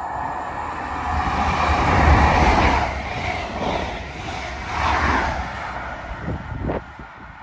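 A passenger train passes close through a station at speed. The rush of the coaches swells twice, then falls away sharply near the end as the train draws off down the line.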